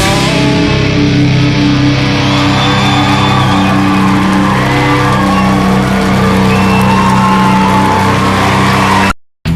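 Nu-metal band playing live, with loud distorted electric guitars holding heavy sustained chords over drums. It cuts off abruptly to silence near the end.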